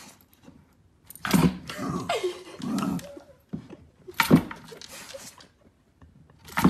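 Dog snapping at a plywood board with holes: two sharp knocks of its mouth on the wood, about three seconds apart, each followed by a second or so of scraping.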